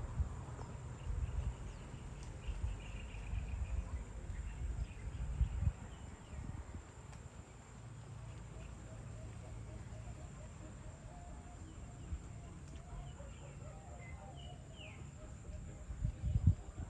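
Evening outdoor ambience: scattered bird chirps and calls over a steady, high insect hum. Bursts of low rumble come in the first few seconds and again near the end.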